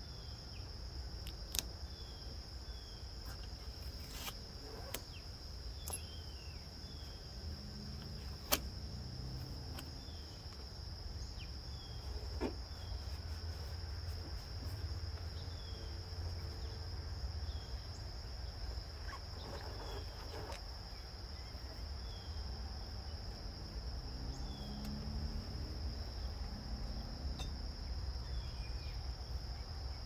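Outdoor background with a steady high-pitched tone and a low rumble, repeated faint short chirps, and a few scattered clicks and rustles from hands smoothing masking tape onto a car fender.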